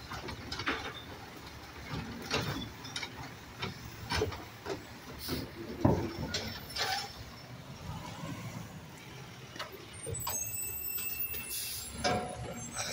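Automated side-loader garbage truck's hydraulic arm emptying and setting down a wheeled trash cart: irregular clanks and knocks over the diesel truck's low running, with a loud bang about six seconds in. A high hiss comes in near the end as the truck moves off.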